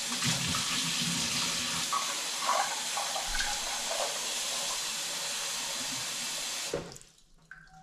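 Kitchen faucet running cold water into a small stainless steel pot of boiled quail eggs, a steady splashing stream that stops abruptly near the end.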